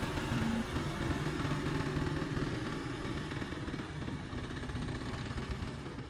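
Fiat 640 tractor's diesel engine running under load as it pushes a front blade full of soil, fading slowly as the tractor moves away.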